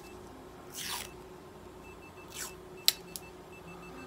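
Pink self-adhesive bandage and tape being handled on a cat's foreleg: two short rustling swishes and a couple of sharp clicks, over a faint repeated electronic beep and a low steady hum.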